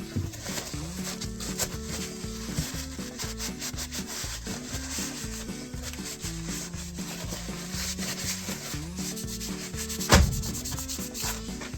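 Continuous rubbing and scrubbing against a pocket knife's textured handle shell as it is cleaned. A single sharp knock about ten seconds in.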